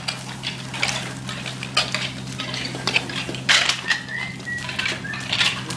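Metal hand tools clinking and scraping against hard surfaces in irregular strokes, the loudest about three and a half seconds in, over a steady low hum.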